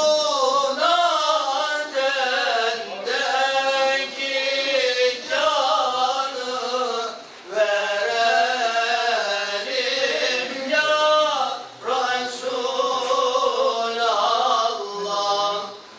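A man chanting a melismatic Islamic recitation, holding long ornamented notes in phrases, with short breaks for breath about seven and a half and twelve seconds in.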